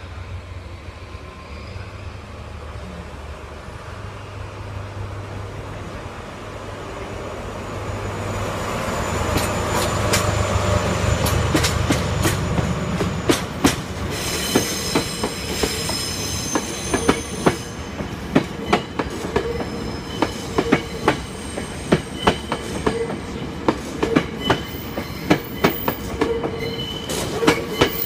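JNR Class DE10 diesel locomotive hauling a train of new 12000 series cars, its engine a low steady hum that grows louder about a third of the way in. As the unpowered cars roll past, their wheels clack regularly over the rail joints, about one to two clacks a second, with a high wheel squeal above.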